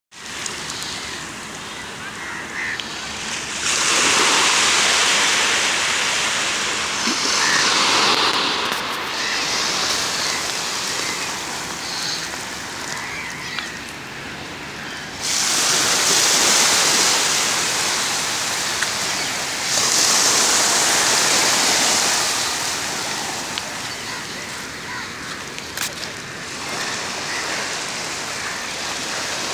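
Small waves washing onto a shallow sandy shore: a steady hiss that swells louder for a few seconds at a time, several times over.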